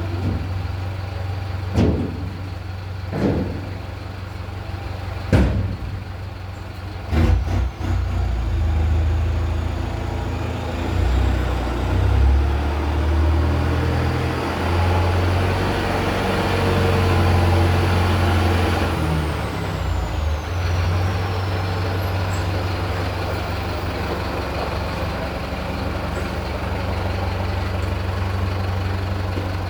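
Mercedes-Benz 1718 dump truck's turbocharged diesel engine with a straight-pipe exhaust, idling and then revved and held up for several seconds while tipping a load of sand. A high turbo whistle climbs as it revs and falls away as it drops back to idle. A few short sharp bursts, like air releases, come in the first several seconds.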